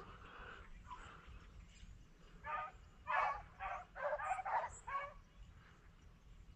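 Rabbit hounds giving tongue as they run a rabbit's track: a string of short barks and bays, bunched together between about two and a half and five seconds in.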